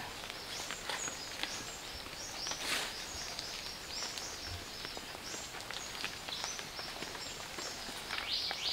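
Forest ambience with short, high chirping calls repeating about three times a second. Light footsteps and rustling on leaf litter, with one brief rustle about three seconds in.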